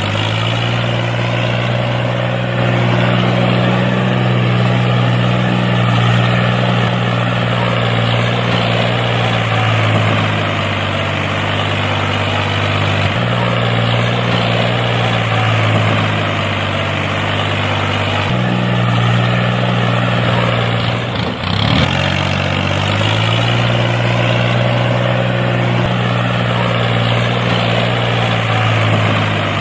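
Tractor engine idling with a steady low note that jumps abruptly a couple of times and dips briefly about two-thirds of the way through.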